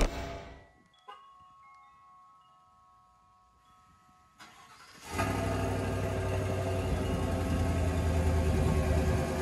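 2021 Chevy Silverado 1500 pickup on its stock exhaust, which has a silencing flap, starting up about five seconds in and then idling steadily. A brief chime sounds about a second in.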